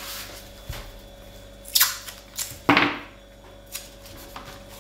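Watercolour painting gear being handled: about four brief clicks and knocks, the loudest just past the middle, over a faint steady hum.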